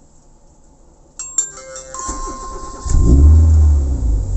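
An electronic chime rings about a second in, then the Ford Lynx's engine is started: the starter turns it over and it catches about three seconds in, loud at first and then settling toward a steady idle.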